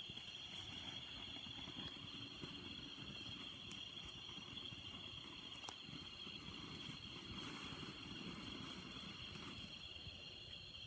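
Night insects, crickets, chirping steadily in a high continuous drone, with a single sharp click about halfway through.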